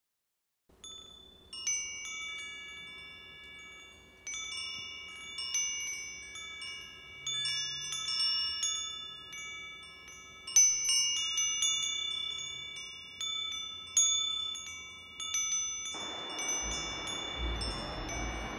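Chimes ringing: a handful of fixed bell-like notes struck at uneven moments, each ringing on and overlapping the others. A steady hiss joins near the end.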